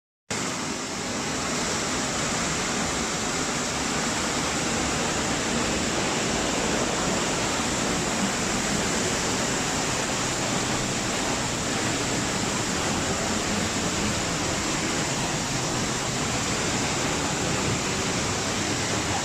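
Waterfall: a steady rushing of falling water, loud and unchanging.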